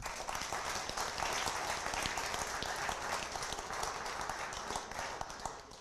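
Audience applauding, a dense patter of hand claps that dies away near the end.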